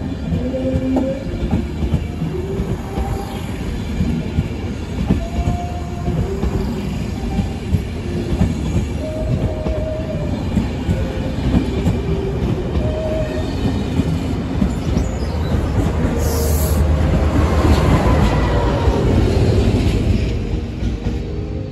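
Diesel-hauled Enterprise passenger train pulling out past the platform: carriages rumbling by, wheels clicking over rail joints and squealing in short tones on the curving track. Near the end a deep diesel rumble swells and then fades with a falling tone as the Class 201 locomotive's engine passes.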